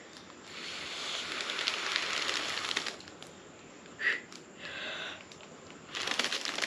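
Air blown through a straw into a self-sealing foil letter balloon: a long breathy hiss of about two seconds, then a shorter one near the middle. Near the end the foil balloon crinkles as it is handled.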